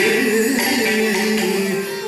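Carnatic music accompanying a Bharatanatyam pushpanjali, in its closing bars, with a long held note that breaks off near the end.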